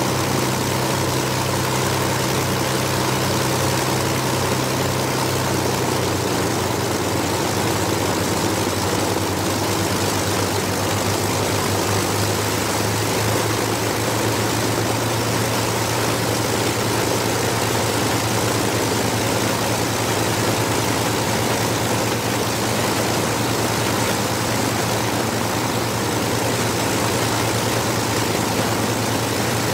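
The de Havilland Mosquito's twin Rolls-Royce Merlin V-12 engines run steadily on a ground run, propellers turning. About six seconds in, the engine note drops slightly and throbs for a few seconds before it settles into a steady hum again.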